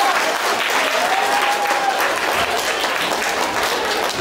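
Audience of children applauding, a dense steady clapping, with a high drawn-out cheer rising and falling over it about a second in.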